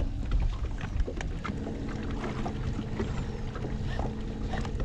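Wind buffeting the microphone and water lapping against a boat, with small scattered clicks and a steady hum that sets in about a second and a half in.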